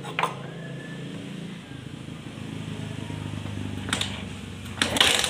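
A low, steady engine-like hum that grows slightly louder, then a rapid metallic clattering that starts near the end.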